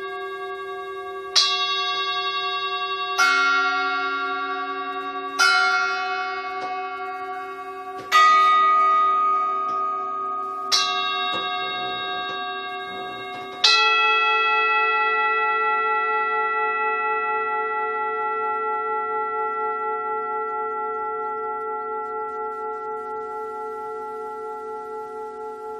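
Bells struck six times in slow succession, each strike ringing on with many long, sustained tones that overlap; the last strike, a little past halfway, rings out and slowly fades with a gentle wavering beat.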